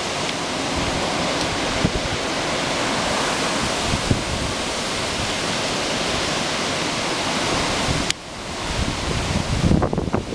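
Hurricane-force wind blowing in a loud, steady rush. About eight seconds in it drops off suddenly, followed by uneven low buffeting of wind on the microphone.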